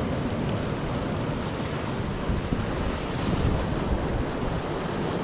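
Sea surf washing and breaking against a rocky shore, with wind buffeting the microphone in uneven low rumbles.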